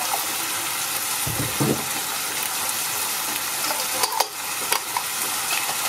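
Minced meat and tomato passata sizzling steadily in a hot frying pan. A dull knock comes about a second and a half in, and a few light clicks come around four seconds in.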